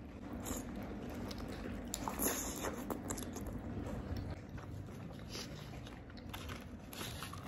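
A person biting into crispy fried chicken coated in gulai sauce and chewing it, with crackly crunches of the coating. The loudest crunches come about two seconds in, with more scattered through the chewing.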